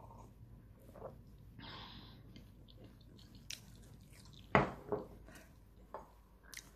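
Small handling noises on a kitchen counter: scattered soft clicks, a short hiss about two seconds in, then one sharp knock about four and a half seconds in followed by a smaller one, as a cookie is picked up from a ceramic plate.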